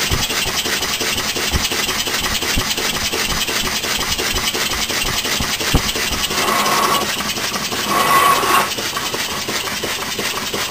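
Large model oscillating (wobbler) steam engine, 2½-inch bore, running on compressed air fed by a hose: a steady, fast rasping chuff of exhaust and mechanism. Twice past the middle a brief higher tone joins in.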